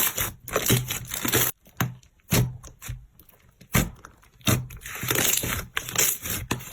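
Crunchy slime being squeezed and pressed, crackling and popping in repeated bursts, about two a second, with a short lull partway through.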